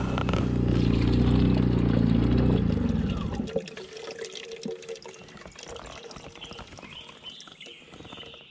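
Rainwater pouring out of a lead-pour pipe into a plastic jar as the pipe is drained. It runs strongly for about three and a half seconds, then drops to a faint trickle.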